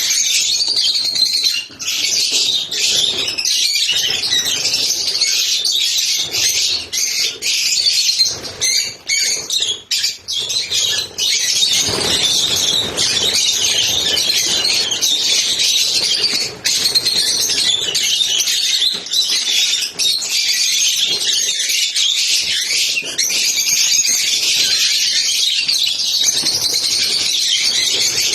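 Lovebirds chattering: a dense, continuous high-pitched chirping that hardly pauses.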